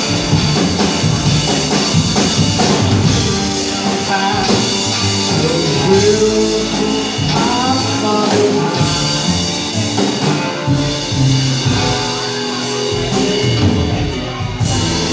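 A live band playing a song: banjo, upright bass, electric guitar and drums, with a wind instrument and a singing voice over them.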